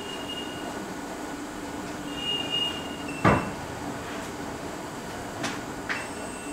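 Work noise at an electronics repair bench over a steady room hum: two short high beeps, then a sharp knock about three seconds in and two lighter clicks near the end.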